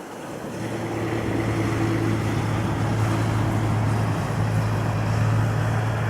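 Engine drone swelling about half a second in, then holding steady, with a steady low hum under a broad rushing noise.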